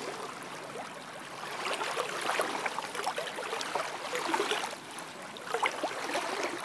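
Small lake waves lapping on a sandy shore. Each wavelet washes up with a fizzing, crackling wash, and they swell and fade about every two seconds.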